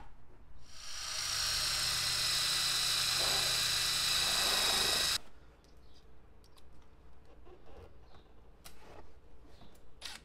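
Cordless drill running at a steady speed for about four and a half seconds, then stopping abruptly; a few faint clicks of handling follow.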